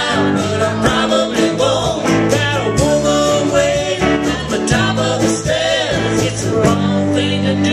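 Live acoustic country music: strummed and plucked guitar with a singing voice, played steadily throughout.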